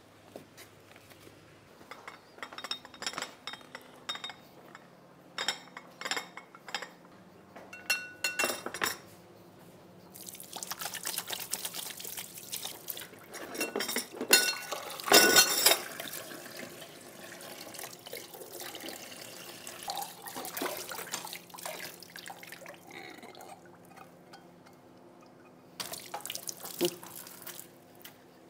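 A series of light clinks, some with a brief ring, then water running and splashing for long stretches from about ten seconds in, loudest around fifteen seconds, with a short burst again near the end.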